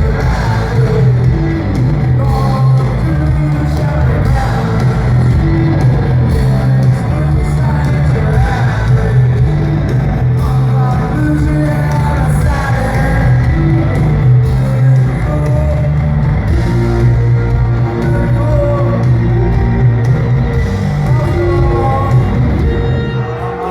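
Live rock band playing loud with a singer, the music steady and full throughout.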